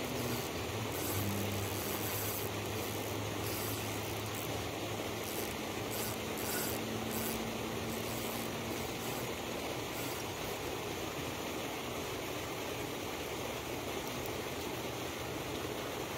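Steady, even hiss of outdoor background noise, with a faint low hum that fades out about ten seconds in.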